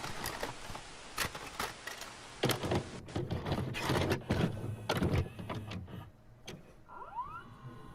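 VHS cassette being loaded into a VCR: a run of mechanical clicks and clunks as the tape is drawn in and threaded, with a short rising whine near the end.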